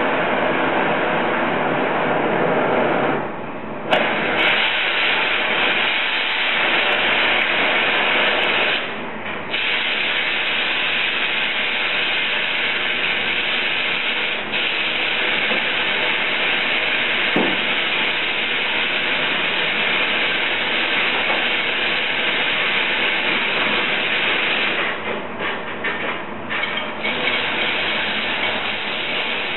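Glassblower's gas torch burning with a steady, loud hiss of flame. The hiss drops briefly about three and nine seconds in and flutters for a moment near the end.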